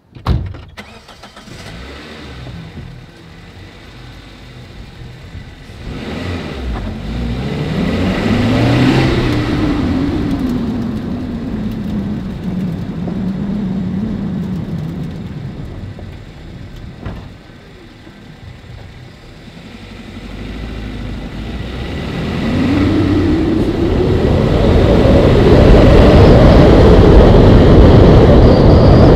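A car engine starting, then revving and pulling away. Its pitch rises and falls, drops back, then climbs again until it runs loud near the end.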